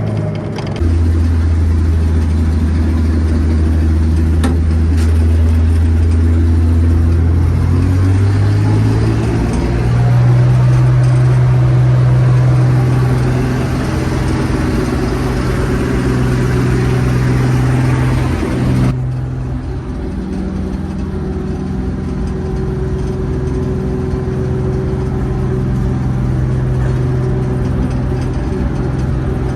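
John Deere 95 combine engine running steadily. Its pitch rises about eight to ten seconds in. A hissing rush above the engine note cuts off suddenly about two-thirds of the way through.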